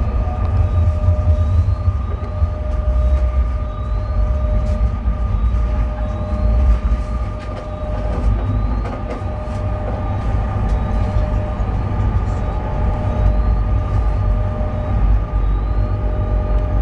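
A tram running along its track, heard from on board: a steady low rumble with a constant high whine over it and faint clicks now and then.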